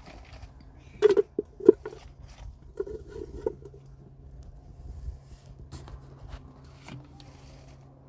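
A series of short knocks and scrapes, as of objects being handled; the two loudest knocks come a little after one second in, with a quicker cluster around three seconds. A low steady hum runs underneath.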